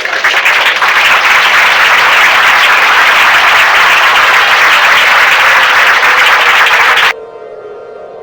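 Audience applauding, cut off abruptly about seven seconds in, leaving a quieter steady drone.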